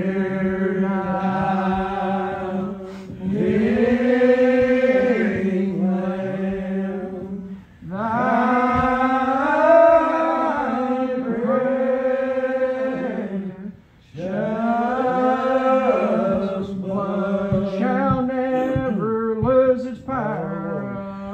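Unaccompanied congregation singing a lined-out hymn in the slow Old Regular Baptist style. Each syllable is stretched into long, bending notes, in three long phrases with short breaks between them.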